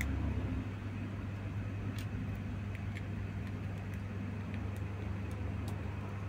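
Steady low background hum, with a few faint, sparse clicks as the plastic parts of a building-toy dinosaur figure are handled and fitted.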